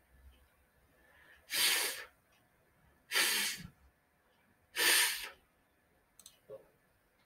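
A voice making a drawn-out, voiceless 'fff' three times, each about half a second long and about a second and a half apart: the English 'f' sound said on its own as a pronunciation model.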